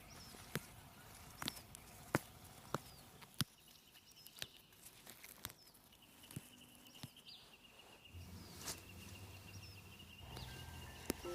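Quiet outdoor ambience: sharp, irregular clicks or snaps about once a second, with faint high bird chirps. A steady high tone joins about halfway, and low sustained music notes come in near the end.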